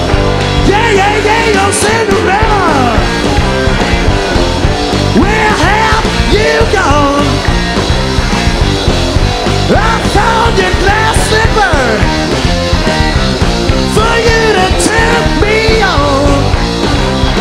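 Live rock band playing a loud song, with notes bending up and down in pitch throughout.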